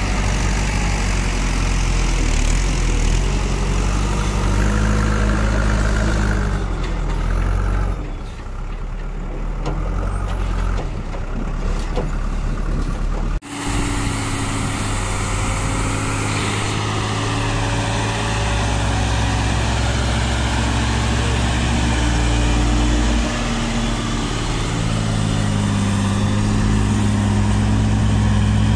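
Tata LPK 3118 tipper truck's diesel engine labouring under load as the truck climbs a dusty road, its pitch shifting up and down. The engine sound fades back for several seconds about a quarter of the way in, then cuts back in sharply, loud and steady, just under halfway through.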